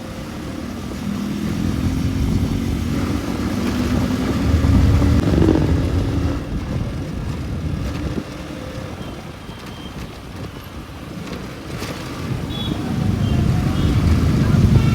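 Motorcycle engine running on the move in traffic: it revs up a second or so in and climbs in pitch for a few seconds, eases off through the middle, and grows louder again near the end, over road and wind noise.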